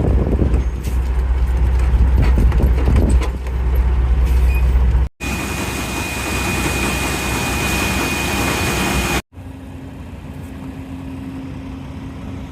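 Heavy vehicle engines in three short clips cut together. First comes a loud, low engine rumble. After a cut about five seconds in there is a denser machine noise with a steady high whine, and after a second cut near nine seconds a quieter engine runs with a low steady hum.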